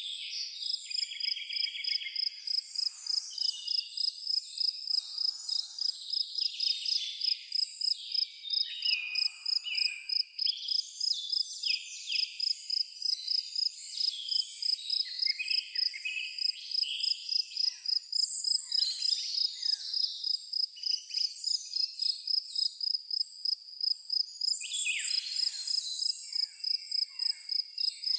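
Cricket chirping steadily in a high, even pulse about three times a second, with several songbirds singing short varied phrases over it.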